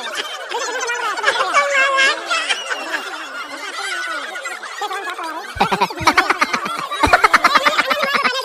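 Crowd of children shouting and laughing together, many voices at once. Late on, louder rapid bursts of laughter join in.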